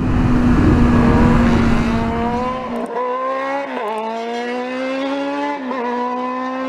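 Kawasaki Z1000 R's inline-four engine running hard at highway speed, its pitch climbing steadily with a few brief sharp dips. A heavy low rumble of wind and road under it drops away about three seconds in.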